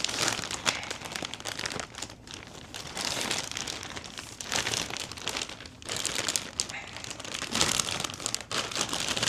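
Packaging crinkling and rustling in bursts as a box is unpacked by hand.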